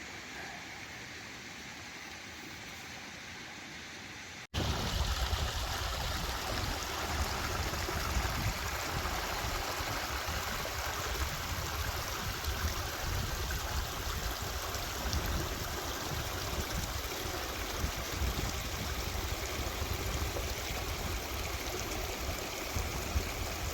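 Mountain stream rushing steadily, with wind rumbling on the microphone. It comes in suddenly about four and a half seconds in, after a fainter hiss.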